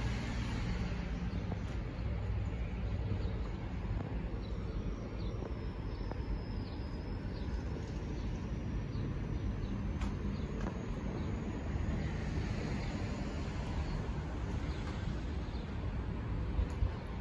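Outdoor ambience: a steady low rumble with faint bird chirps a few seconds in.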